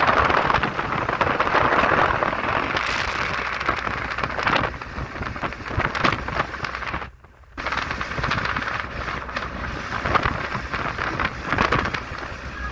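Wind buffeting the phone's microphone at the open window of a moving vehicle, a loud rough rush mixed with road noise. It drops out for about half a second about seven seconds in.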